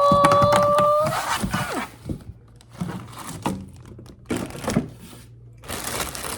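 Plastic and paper packaging crinkling and tearing, with light thunks, as a new sewing machine's parts are unwrapped. A long high-pitched held cry ends about a second in.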